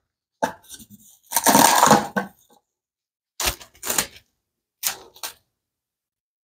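Handling sounds while plastic wrap is being coated with cooking spray: a short hiss-like rustle about a second and a half in, then several sharp clicks and taps.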